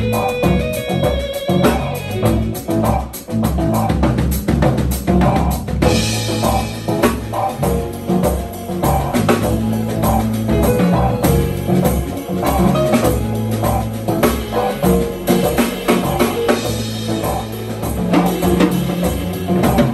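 Live jazz trio playing: a Cadeson drum kit, an electric bass guitar with a repeating bass line, and keyboards.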